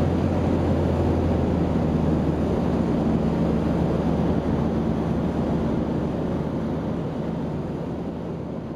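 Rotax 912 UL four-cylinder engine and propeller of a light aircraft in cruise flight at about 5000 RPM, heard from inside the cockpit as a steady drone with rushing wind. It fades out gradually over the last few seconds.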